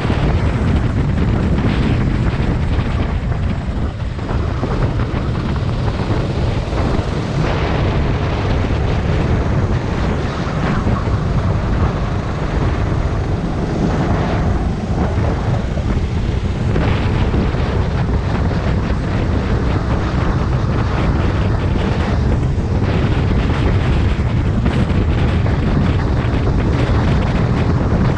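Rental racing kart's engine running at speed under race load, heard from on board, with wind buffeting the microphone.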